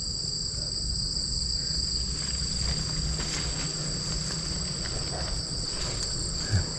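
Steady insect chorus of forest crickets or cicadas: two unbroken high, shrill tones droning on together, with faint low rustling underneath.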